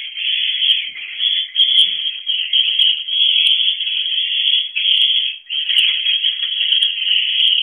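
Swiftlets twittering in a dense, unbroken chorus of high chirps, with a few faint ticks above it.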